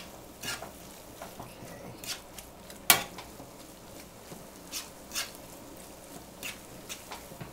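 A metal utensil scraping and knocking against a nonstick frying pan as ground turkey with onions and peppers is stirred, in irregular strokes with one sharp knock about three seconds in. The mixture sizzles faintly over the raised heat.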